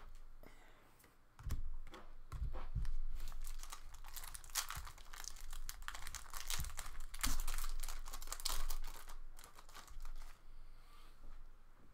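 Foil wrapper of a trading card pack crinkling and tearing as it is opened, with light knocks of handling, from about a second and a half in until near the end.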